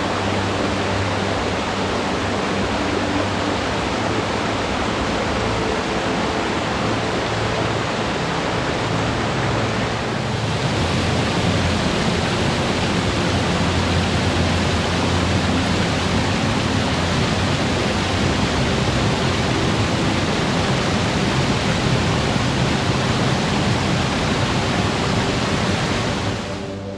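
Loud, steady rush of water tumbling down a stream cascade, with a brief dip about ten seconds in and a slightly fuller rush after it.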